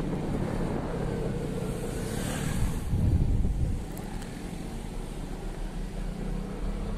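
Engine and road noise of a moving vehicle, a steady low rumble. It swells louder for about a second near the middle, then eases back.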